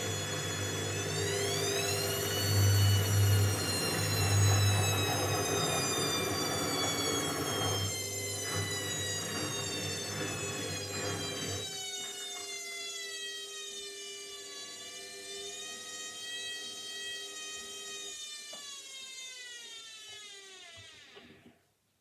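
Indesit front-loading washing machine at the end of its spin cycle: the motor's whine rises briefly, then falls slowly in pitch as the drum winds down. The low hum drops away about halfway through, and the sound stops just before the end.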